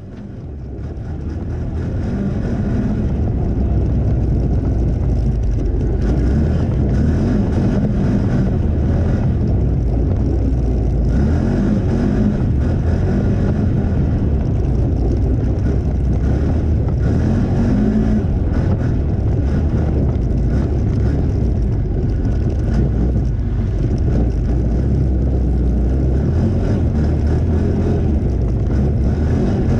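Off-road vehicle's engine running under way with the low rumble of tyres on a snowy dirt track. The sound builds over the first few seconds, then holds steady, with the engine note rising briefly a few times.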